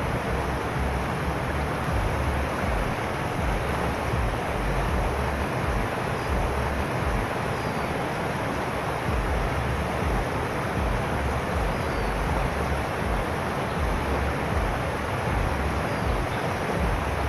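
Wind buffeting the microphone: a steady rushing noise with a gusty low rumble that rises and falls.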